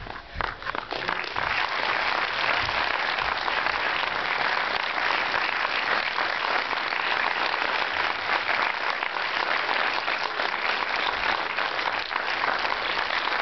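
Audience applauding, swelling within the first second or so and then holding steady.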